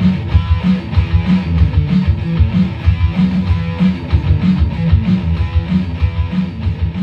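Background music: guitar-driven rock with strummed guitar and a steady beat.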